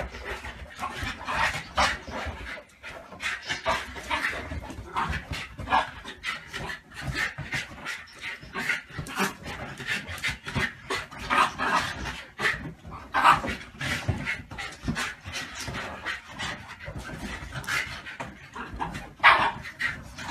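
Shiba Inus play-fighting, making a rapid, irregular string of short vocal bursts with breathing between them, loudest near the end.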